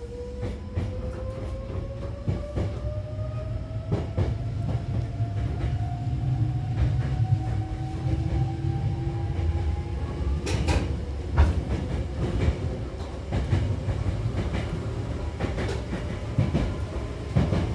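Hankyu commuter train running, heard from inside the car: a low rumble with a faint whine rising slowly in pitch as the train picks up speed, fading out about ten seconds in. After that come repeated clicks of the wheels over rail joints.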